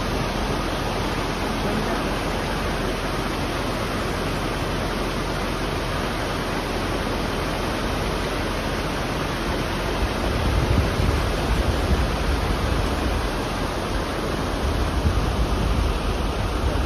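Waterfall and the fast creek below it: a steady rush of falling and tumbling water. From about ten seconds in, a low, uneven rumbling is added underneath.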